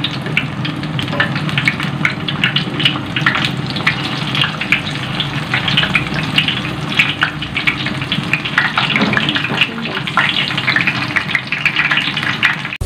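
Battered banana pieces sizzling and crackling in hot oil in a frying pan.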